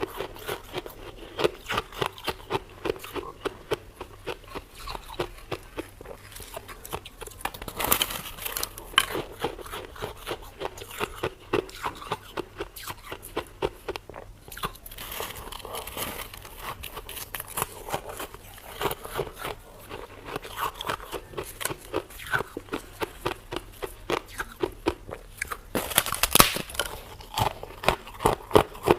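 Freezer frost being bitten and chewed up close: a rapid, irregular run of crisp crunches, with louder bites about eight seconds in and near the end.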